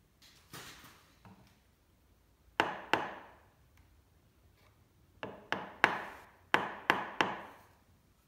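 Small brass-headed hammer tapping a wooden fence on a bandsaw crosscut sled to nudge it square: two sharp knocks, a pause, then two quick groups of three.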